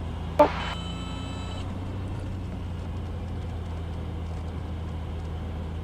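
Cessna 182's engine running steadily at low power, a constant low drone. A single sharp click about half a second in, followed by a brief ringing tone.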